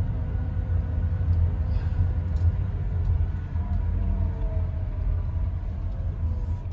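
Steady low rumble of a car being driven, as heard from inside the cabin.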